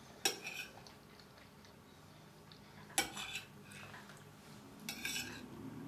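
Metal cutlery clinking and scraping against a plate while eating. It comes in three short bouts: just after the start, about three seconds in, and near five seconds.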